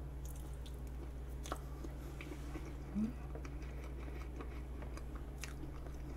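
Close-up soft chewing of vanilla pound cake with whipped cream, with faint scattered small mouth clicks over a steady low electrical hum. A brief low hum of the voice sounds about halfway through.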